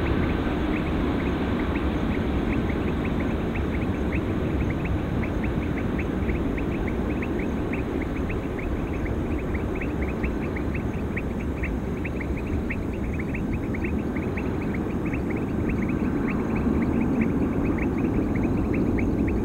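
Antonov An-225 Mriya's six D-18T turbofans, a steady distant rumble as the aircraft climbs away. Over it come rapid, high, repeated chirping calls, several a second.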